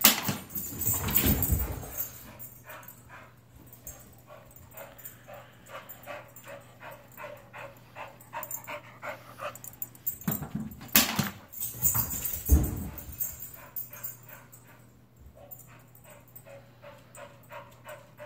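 An iFetch Too automatic ball launcher fires a tennis ball with a sharp click at the start and again about eleven seconds in. Each shot is followed by a second or two of thuds. In between, a dog whimpers faintly and repeatedly.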